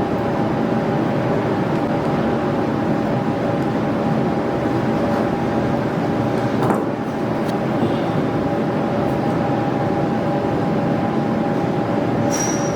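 Steady mechanical hum with two steady tones, with a few faint clicks of stainless orthodontic wire being bent with pliers. Near the end, a sharper metallic click rings briefly.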